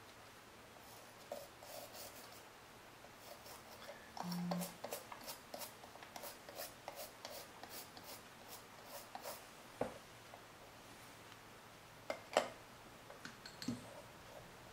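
Faint, quick scratching strokes of a small brush scrubbing an iPhone 4S logic board to clear water-damage corrosion. There is a brief low hum about four seconds in and a few light clicks, the sharpest about twelve seconds in.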